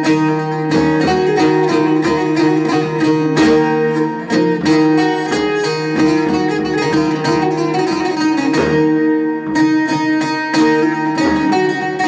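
Bağlama (Turkish long-necked saz) playing an instrumental passage of a folk song: quick plucked strokes over steady ringing notes, with no singing.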